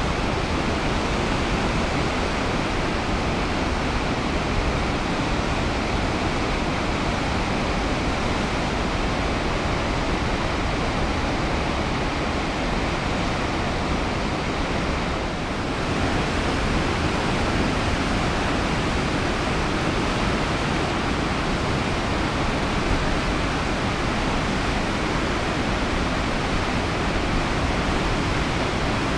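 St. Louis River rapids running high, a steady rush of whitewater pouring over and between rock ledges.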